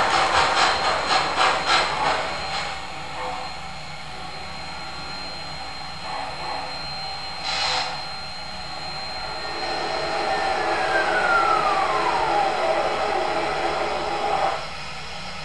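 MTH RailKing O-scale Blue Comet model steam locomotive running, its sound system chuffing about four times a second for the first couple of seconds before the chuffs fade into a steady running noise. A short hiss comes about seven and a half seconds in, and a squeal falling in pitch a few seconds later, while the train grows louder and then drops off suddenly near the end.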